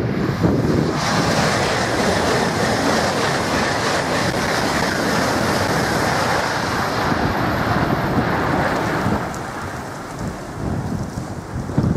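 Eurostar Class 373 high-speed electric train passing close at speed: a loud, steady rush of air and wheels that builds about a second in and falls away after about nine seconds.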